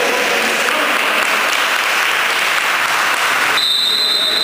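Spectators applauding in a sports hall. About three and a half seconds in the applause stops and a referee's whistle gives one long, steady high blast, the signal for the next serve.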